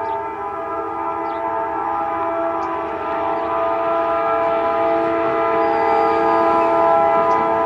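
Locomotive air horn sounding one long, steady blast of several notes at once, growing a little louder in the second half.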